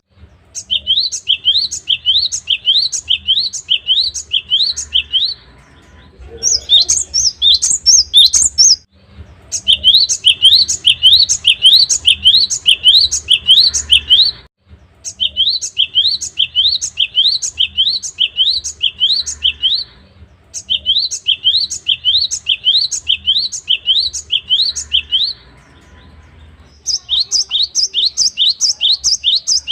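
Cinereous tit (gelatik batu) singing loudly: runs of the same quick rising whistled note repeated about two or three times a second, in six bouts of a few seconds each with short pauses between them. Some bouts are pitched higher than others.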